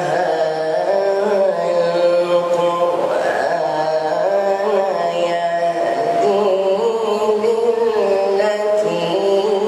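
A man reciting the Quran in the melodic, chanted style, amplified through a microphone: long held notes that waver and turn slowly in pitch, with only brief breaks between phrases.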